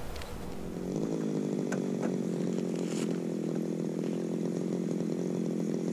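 Small two-stroke engine of a gas-powered ice auger, running steadily at one pitch.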